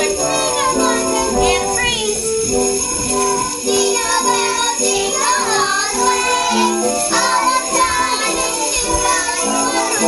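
Sleigh bells jingling steadily over a song with a simple stepping melody of held notes, with children's voices rising over it now and then.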